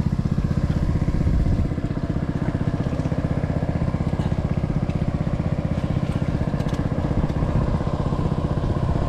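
Small engine of a water pump draining a fishpond, running steadily at constant speed, with a slight drop in level about a second and a half in.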